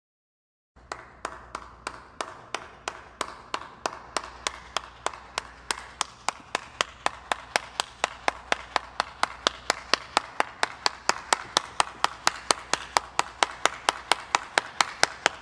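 One person clapping their hands in a steady rhythm, starting about a second in and growing slowly faster and louder, from about three claps a second to about four.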